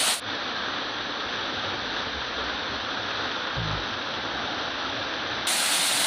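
Small waterfall pouring onto rocks, a steady rush of falling water, with a brief low thump about three and a half seconds in.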